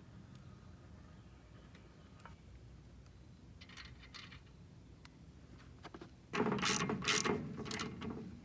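Rapid mechanical ratcheting clicks in a loud burst lasting about two seconds, starting a little over six seconds in, after a few faint scattered clicks.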